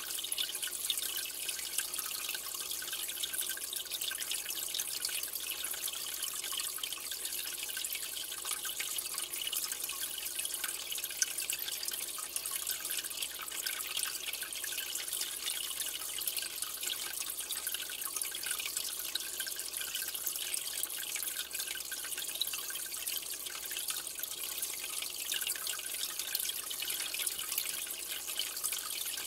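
Aquarium water trickling and bubbling steadily, a continuous fine splashing hiss with tiny crackles.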